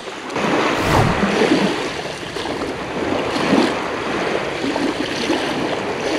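Small sea waves washing onto a shingle beach: a steady rushing wash with gentle swells in level.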